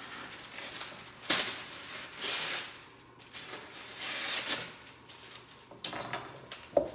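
Kitchen wrap crinkling and rustling in irregular bursts as it is handled on a counter, with a sharp knock about a second in and a few lighter knocks near the end.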